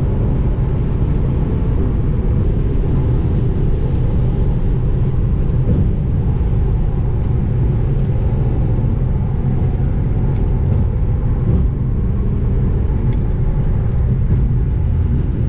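Steady low rumble of road and engine noise inside a car's cabin at freeway speed.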